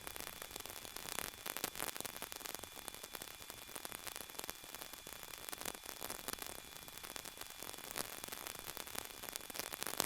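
Steady static hiss with crackle on the helicopter's headset intercom audio feed, with two faint steady high-pitched tones beneath it.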